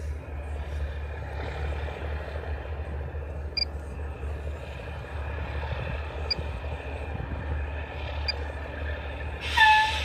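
Grain semi-truck's diesel engine running with a steady low rumble as the rig creeps along and stops. Near the end comes a short, loud air-brake hiss with a slight falling whistle.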